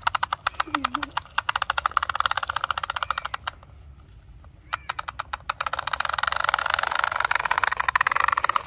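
Plastic push-along duck toy with flapping butterfly wings clicking rapidly as its wheels turn while it is pushed over grass. The clicking stops for about a second a little past the middle, then starts again louder.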